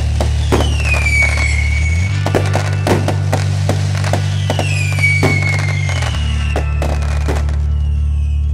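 Firecrackers going off outside in a rapid string of bangs and cracks, with two high whistles falling in pitch, one about a second in and one about five seconds in. Under them runs background music with a steady low bass that changes note every few seconds.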